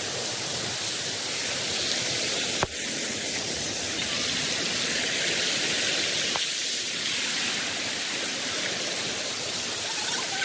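Waterfall rushing, a steady hiss of falling water, with a single sharp click about two and a half seconds in.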